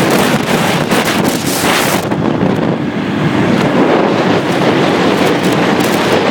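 Wind buffeting the microphone of a phone carried on a moving motorbike, a loud steady rush with road and traffic noise underneath; the upper hiss eases a little about two seconds in.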